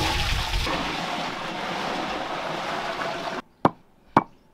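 Water poured from a bowl into a large aluminium cooking pot, a steady splashing that stops suddenly about three and a half seconds in. Then two sharp knocks about half a second apart from pounding in a small aluminium cup.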